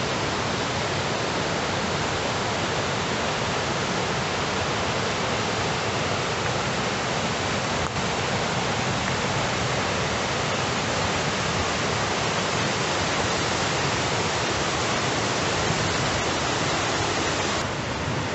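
Gullfoss waterfall and the white-water rapids of its river, a steady, even rush of falling and tumbling water.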